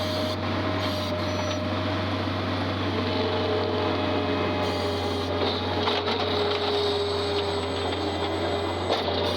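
Skid steer engine running steadily while handling a bale, with a few short knocks in the second half.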